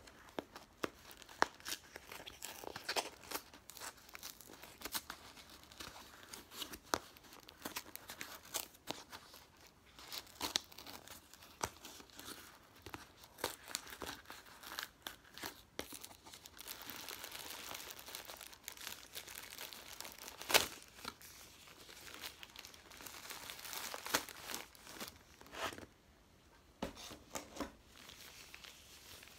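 A cardboard box of Top Glove latex examination gloves having its perforated flap torn open, then powder-free latex gloves pulled out through the opening and unfolded by hand: a long run of crackling, tearing and rustling, with one sharp click about two-thirds through.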